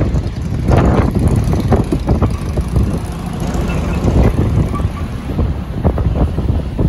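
Wind buffeting the microphone: a loud low rumble with irregular gusts.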